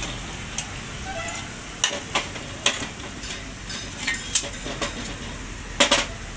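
Metal exhaust parts of a Honda Unicorn motorcycle being handled: scattered sharp metallic clinks and knocks as the silencer and pipes are shifted about, with the loudest pair of knocks near the end.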